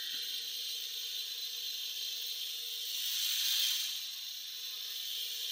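Computer cooling fan whirring as a steady hiss with a faint hum underneath, the machine working hard on a render.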